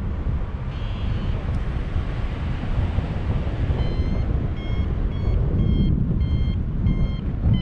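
Wind rushing over the microphone in flight under a paraglider, and from about four seconds in a variometer beeping about twice a second, the beeping that signals the glider is climbing in lift.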